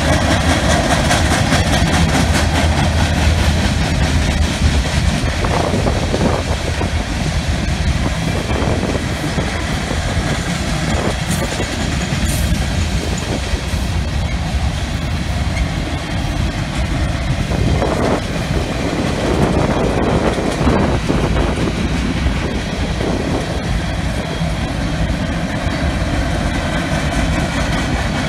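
Freight train cars (covered hoppers, tank cars and boxcars) rolling past, a steady rumble with the steel wheels clacking over the rail joints.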